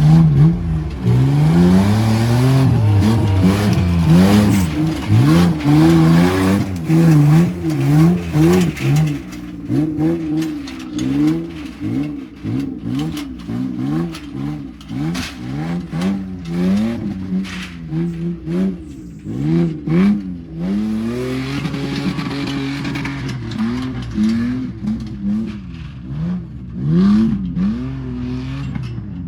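Off-road 4x4 engine revving up and down again and again as the vehicle is driven hard, with many short knocks and clatter through the middle stretch and a steadier, held engine note near the end.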